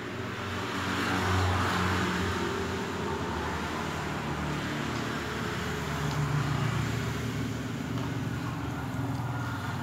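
A motor vehicle's engine running, a steady rumble with traffic-like noise that swells about a second in and again around six seconds.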